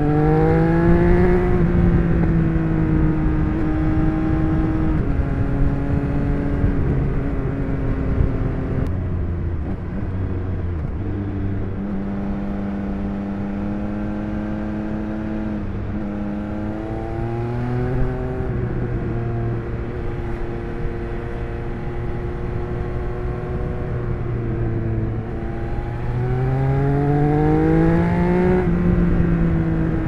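Stock exhaust of a 2021 Triumph Speed Triple 1200 RS's inline three-cylinder engine, heard on board while riding. The revs climb near the start and again in the last few seconds, then drop back sharply as it changes gear, with steadier part-throttle running in between.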